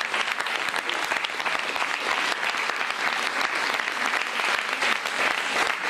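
Studio audience applauding steadily, dense clapping from many hands.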